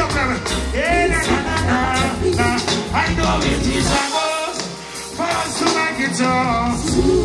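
Live reggae band with a male lead vocalist singing over bass, drums and keyboards. About four seconds in, the bass and drums drop out for roughly a second, leaving the voice nearly alone, then the full band comes back in.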